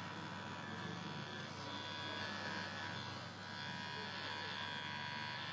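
Cordless electric hair clipper buzzing steadily as it trims beard hair on the neck below the jawline.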